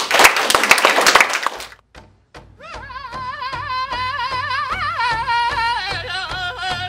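Small audience applauding for the first second and a half, then a short gap and credits music: a wavering singing voice over a steady beat of about three strokes a second.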